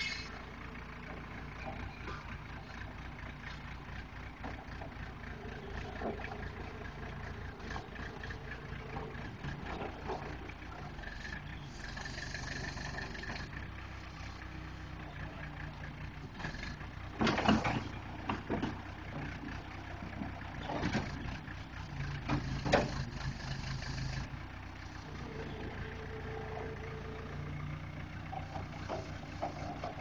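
Case 480C backhoe's engine running steadily while it works. A few sharp knocks stand out over it, the loudest about 17 and 23 seconds in.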